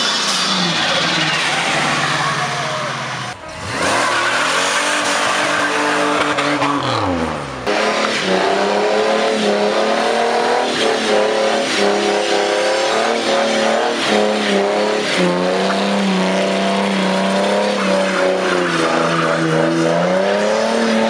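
Car engines revving hard in burnouts, the rear tyres spinning on asphalt with a rushing squeal under the engine note. The engine pitch rises and falls in the first few seconds, breaks off briefly twice, then holds high with short dips.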